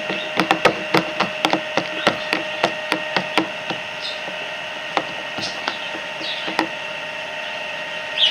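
A quick series of sharp taps or clicks, about three a second for the first few seconds, then a few scattered ones further apart.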